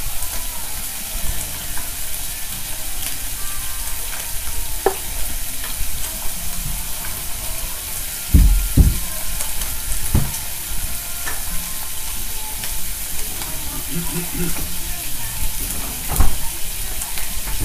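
Eggplant slices, fried tofu and sausages sizzling on an electric tabletop hot plate, a steady hiss. A few dull thumps break in: two close together about eight seconds in, one around ten seconds, and one near the end.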